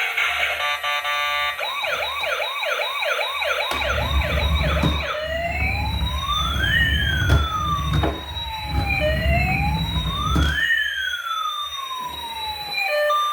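Electronic siren from a toy emergency vehicle: after a couple of seconds of steady beeping tones, it plays a fast yelp of about three sweeps a second, then changes to a slow wail that rises and falls twice. A low rumble runs under the siren for several seconds in the middle.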